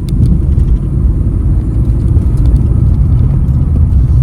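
Car's engine and road rumble heard from inside the cabin while driving slowly, a steady low drone.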